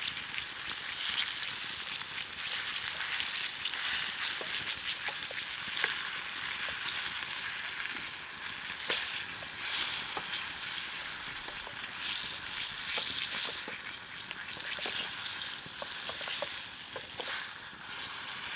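Seasoned fish fillets frying in hot oil in a pan over a campfire: a steady sizzle with scattered small pops and crackles.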